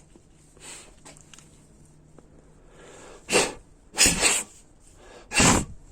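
Three short, noisy puffs of breath close to the microphone in the second half, the middle one doubled.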